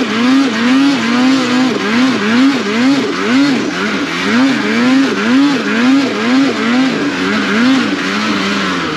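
Ski-Doo snowmobile engine with the throttle worked on and off over and over, its pitch rising and falling about twice a second, as the sled is ridden through an uphill switchback on a hillside at slow, controlled speed.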